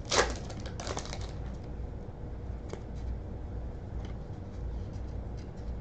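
A foil trading-card pack being torn open with two short crinkling rips about a second apart, then the cards handled with a sharp click and faint quiet ticks.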